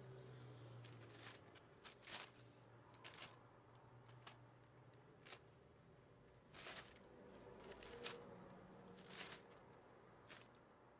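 Faint rustles of thin plastic freezer bags and soft taps as cooked eggplant slices are picked off a metal baking tray and dropped in, coming in short separate sounds about once a second.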